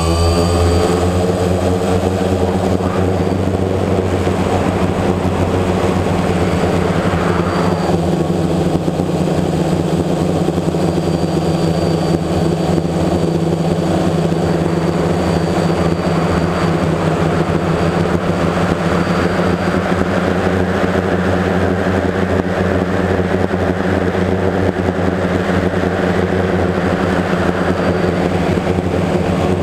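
DJI Phantom quadcopter's electric motors and propellers buzzing steadily in flight, recorded close up from a camera on the drone itself; several tones sound at once, and their pitch drops slightly at the very start before holding steady.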